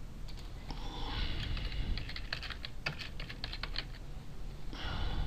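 Typing on a computer keyboard: a quick run of key clicks from about a second in until about four seconds, over a steady low hum.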